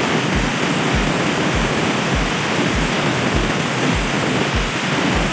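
Handheld angle grinder with a sanding disc running against a wooden strip, a dense steady grinding hiss. A deep thumping beat, about one and a half thumps a second, runs underneath.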